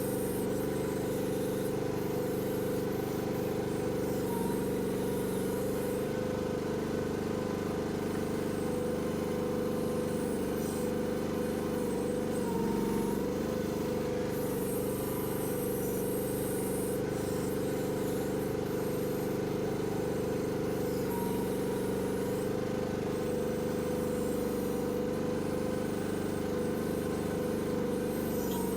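Chinese mini excavator's engine running steadily while working, its pitch shifting slightly now and then.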